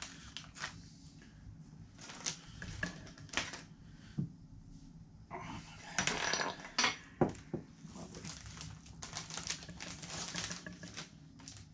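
Plastic bags of soft plastic fishing lures crinkling and rustling as they are handled, with scattered clicks and taps; the crinkling is thickest about six seconds in and again near the end.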